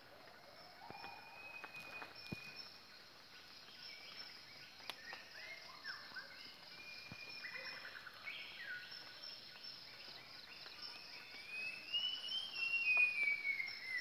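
Tropical rainforest ambience: a steady, pulsing high insect drone under many whistled bird and animal calls. A louder call rises and then falls over the last few seconds.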